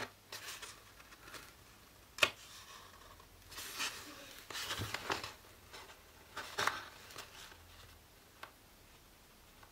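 Faint handling noises from a roll of bookbinding cloth: a sharp click about two seconds in, then a few short rustles.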